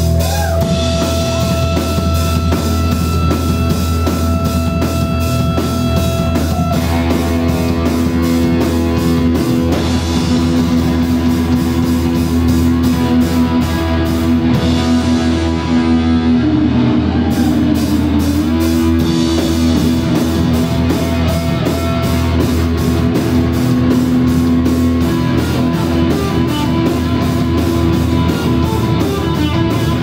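Live rock band playing loud: electric guitars holding sustained notes over a drum kit with steady cymbal and drum hits.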